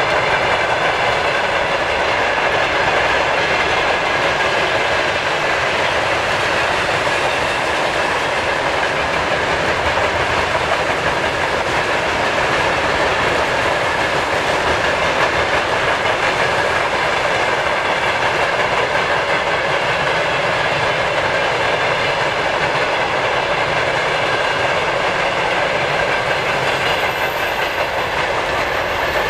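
Wagons of a long mixed freight train (open wagons, tank cars, hoppers) rolling steadily past, with the continuous clatter of steel wheels on the rails.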